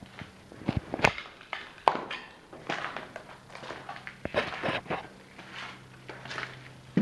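Footsteps and scuffs on a wooden subfloor: irregular knocks and shuffles, with a faint steady low hum underneath.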